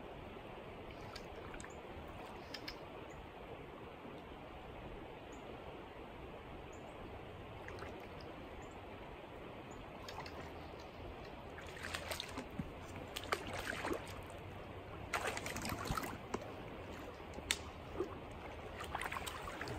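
Steady flow of creek current, with short splashy bursts and a few sharp clicks in the second half.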